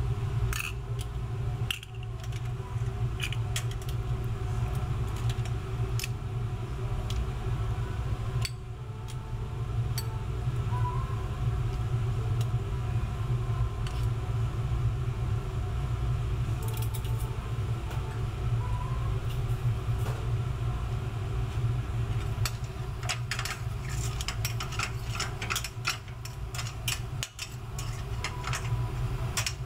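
Metal spoon and tongs clinking and scraping against a steel sauté pan as risotto is stirred and shrimp and clams are lifted out, over a steady low roar from the kitchen's gas burners and exhaust fans. The clinks come thickest in the last few seconds.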